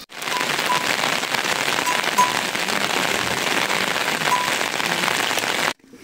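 Heavy rain falling: a dense, steady patter that starts suddenly and cuts off abruptly near the end.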